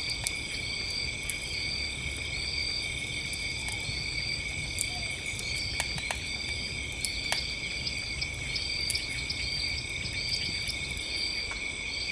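Night chorus of crickets and other insects: several steady high trills with one short chirp repeating about every two-thirds of a second. Over it a campfire crackles with scattered sharp pops.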